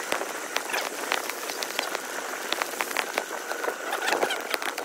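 Bicycle rolling over brick paving: a steady hiss of tyre and road noise, with many small irregular rattles and clicks from the bike jolting over the bricks.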